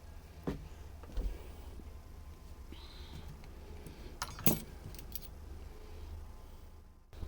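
A few sharp metallic clinks of cutlery against a plate, loudest in a quick cluster a little past the middle, over a steady low rumble.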